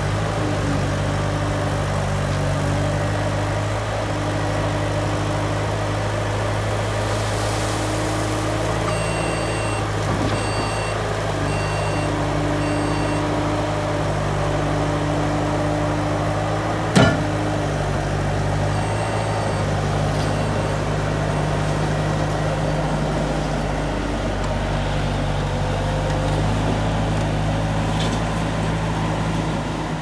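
Bobcat A300 Turbo skid-steer loader's turbocharged diesel engine running steadily as the machine is driven about, its note shifting now and then with load. A beeping alarm sounds in two short runs of about one beep a second, and a single sharp clank about seventeen seconds in is the loudest moment.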